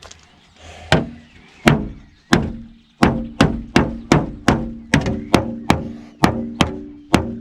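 Victorinox Hunter Pro pocketknife stabbed tip-first into a car door's steel panel, each strike a sharp knock that leaves the panel ringing. Three spaced stabs come first, then from about three seconds in a steady run of about three stabs a second.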